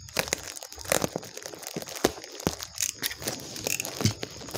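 A black plastic mailing bag being slit with a utility knife and pulled open by hand: irregular crinkling and tearing of the plastic, with sharp crackles.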